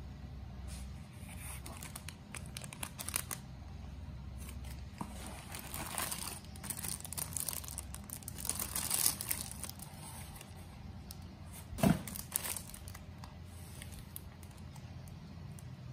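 Clear plastic bag crinkling and rustling in irregular bursts as a bagged tablet case is handled and lifted from a cardboard box, with one dull thump about twelve seconds in.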